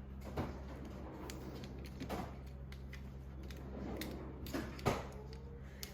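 Scattered clicks, knocks and scrapes of hard plastic being pried at with a hand tool, the sharpest click about five seconds in. A steady low hum runs underneath.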